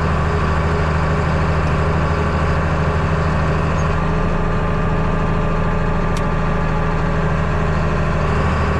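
Farm tractor's diesel engine running steadily, heard from inside the cab.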